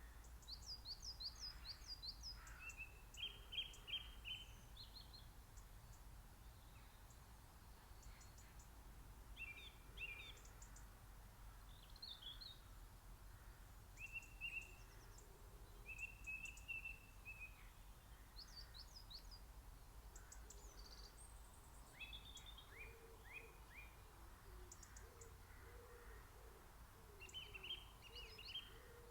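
Faint spring birdsong from several songbirds, with short chirping and trilled phrases from different birds coming one after another and sometimes overlapping. A low, repeated cooing joins in under the song for the last few seconds.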